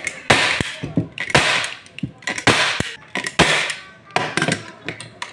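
Staple gun firing repeatedly to fasten silk-screen mesh to a screen-printing frame: a string of sharp clacks, several a second at times, with short bursts of rustling noise in between.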